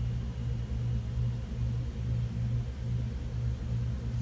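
Steady low hum that pulses a little over twice a second, over faint hiss; no distinct sound from the needle and thread.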